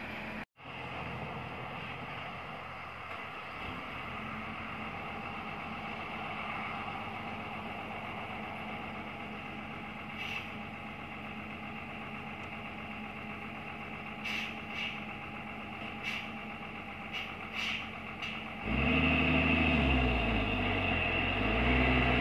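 Heavy diesel tanker truck engine running at a steady low level. A little over three-quarters of the way in it gets much louder, revving up and down under heavy throttle on the uphill bend.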